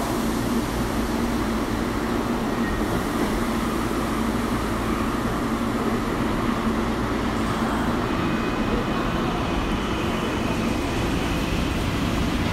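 Running noise of a Tokyo Metro Marunouchi Line 2000-series subway train under way: a steady, dense rumble of wheels on rail and traction motors. A faint high tone joins about two-thirds of the way in.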